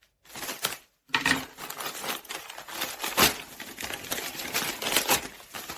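Packaging crinkling and rustling as a parcel is opened by hand, with many sharp crackles, the loudest about three seconds in.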